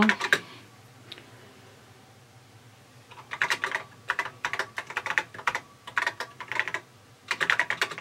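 Typing on a TRS-80 Model III keyboard: a quick, uneven run of key clicks that starts about three seconds in and carries on to the end, with a short pause near the end.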